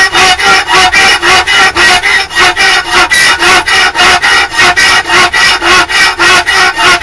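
Rapid, even back-and-forth rasping of a hand tool working metal, about four to five strokes a second, with the workpiece ringing under each stroke.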